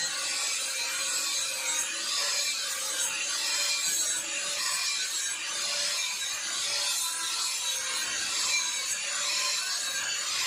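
Handheld electric angle grinder running steadily, its disc grinding the edge of a steel sword blade: a constant motor whine under a harsh grinding hiss that swells and eases every second or two as the disc is worked along the blade.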